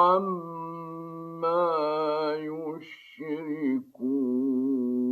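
A man's voice reciting the Quran in the slow, melodic mujawwad style, drawing out long ornamented notes. There is a brief pause about three seconds in, then a long steady held note.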